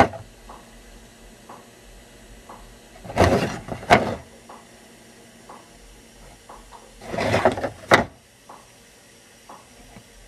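Two loud rustling, sliding swishes about four seconds apart, each ending in a sharp click, as paper cards are swapped. A clock ticks faintly about once a second underneath.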